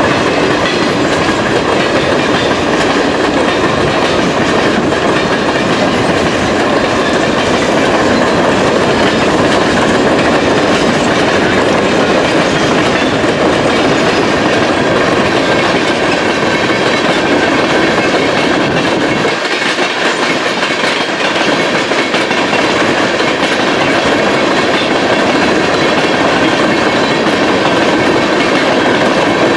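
Freight cars of a manifest train rolling past, their steel wheels clattering steadily over the rails. The low rumble drops away briefly about twenty seconds in.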